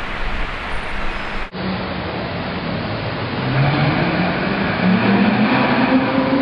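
Ferrari V8 engine accelerating, its note rising in pitch and growing louder from about three and a half seconds in, after street traffic noise that cuts off abruptly about a second and a half in.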